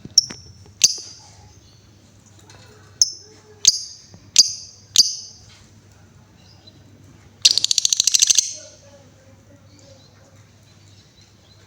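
Female lovebird calling: six sharp, high chirps spread over about five seconds, then, after a pause, a rapid rattling trill lasting about a second, the long call that lovebird keepers call 'ngekek'.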